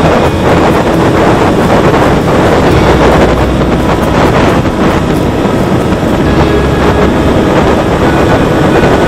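Loud wind rush buffeting the onboard camera microphone of a Volantex Ranger 757-3 RC plane in flight, with its brushless motor and propeller running underneath.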